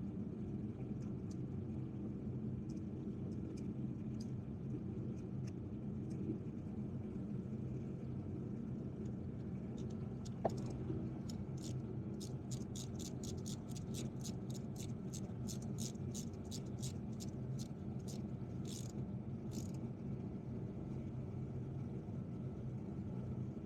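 A steady low rumble runs throughout. About ten seconds in there is a sharp click, then a ratchet wrench clicks rapidly, about three clicks a second, for around eight seconds while a spark plug is turned.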